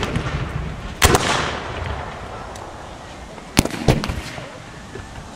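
Pyrotechnic ground charges going off as simulated artillery shell bursts: a sharp bang right at the start, a loud bang about a second in with a rumbling decay, then two more bangs close together about three and a half seconds in.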